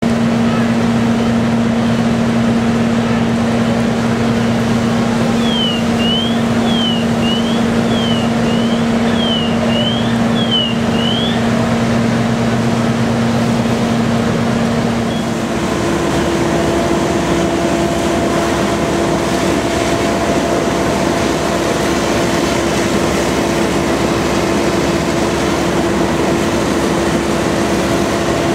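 Fire apparatus diesel engines running steadily, a loud even drone with a constant hum that shifts to a higher note about fifteen seconds in. Between about five and eleven seconds a faint siren gives a rapid run of up-and-down whoops.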